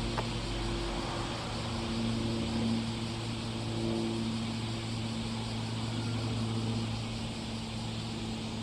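Cessna T206H Turbo Stationair's piston engine and propeller droning steadily as the plane flies high, a low hum whose pitch wavers slightly.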